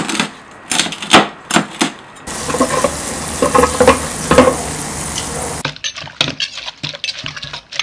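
Cooking sounds in quick succession: a run of sharp cleaver chops on a cutting board, then about three seconds of steady sizzling food, then quick knocks of a pestle pounding in a clay mortar.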